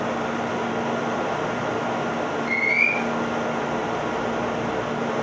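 Steady interior noise of a resistor-controlled Meitetsu 6000 series electric train, with an even low hum under it. A short high rising squeak comes about two and a half seconds in.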